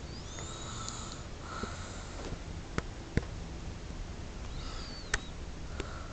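A sleeping person breathing noisily through the nose, with a high whistling squeak on two breaths about four seconds apart, over a steady low hum. A few sharp clicks fall in between.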